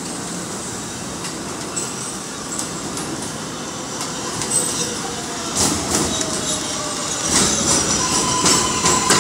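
R188 subway train pulling into an elevated station, getting louder as it nears: high wheel squeal on the rails, wheels clicking over rail joints from about halfway through, and a falling whine as it slows. A steady high squeal sets in near the end.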